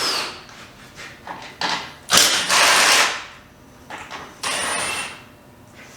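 Power wrench running in short bursts as it backs bolts out of a steel truck bumper. There are three main bursts: one at the start, a longer one about two seconds in, and one about four and a half seconds in, with shorter ones between.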